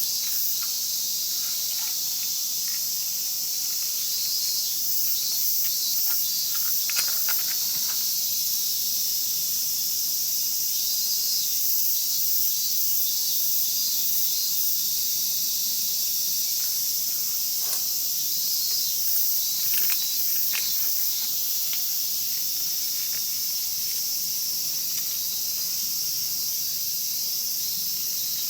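A steady, high-pitched chorus of insects chirping, with a few soft crackles from the wood fire.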